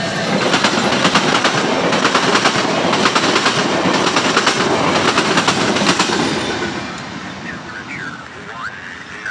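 VIA Rail passenger train passing close, its locomotive and then its coaches going by with rapid wheel clicking over the rail joints. The noise fades after about six and a half seconds as the train moves away down the line.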